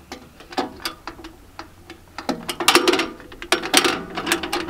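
Steel ammo can being handled and fitted on a tractor fender: a run of quick metallic clicks and clanks, sparse at first, then two busier bursts in the middle.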